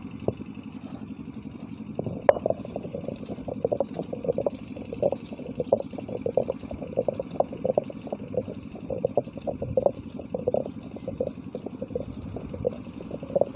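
Stone grinder grinding freshly grated coconut into a wet paste, releasing its milk: a steady low hum under a stream of short, irregular wet clicks, with one sharper click about two seconds in.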